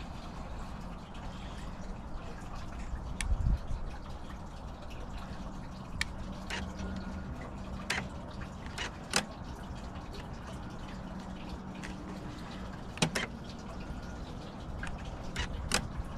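Several short, sharp clicks, scattered through, from the buttons and switches of a Megger EV test adapter being worked while an EV charger is tested. A low steady rumble runs underneath.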